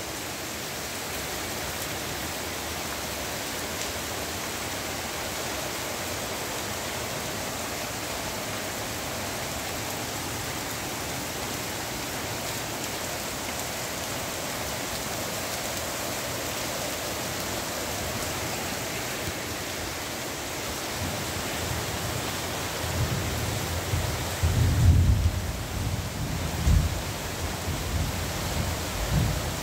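Heavy rain falling in a steady, dense hiss. In the last third, irregular low rumbling thuds join the rain.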